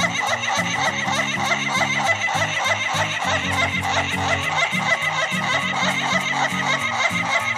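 Ayam Ketawa (laughing chicken) rooster crowing in a fast, stuttering run of notes that sounds like human laughter, over background music with low stepping notes.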